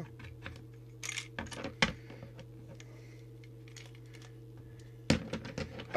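Hard plastic clicks and rattles of a small handheld CB walkie-talkie's case being prised apart by hand: a cluster of clicks in the first two seconds, a quiet stretch, then a sharp click and clatter near the end.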